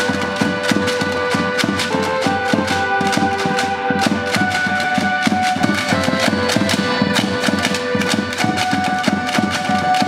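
Live traditional music for a danza of costumed danzantes: a melody of held notes over fast, even percussive clicks.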